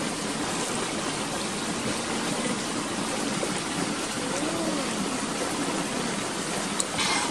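Steady rushing of a stream flowing over rocks, with a short hissing burst just before the end.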